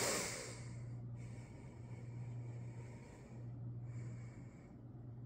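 A sharp snort-like breath at the start, then quiet breathing close to the microphone in two soft stretches, over a steady low hum.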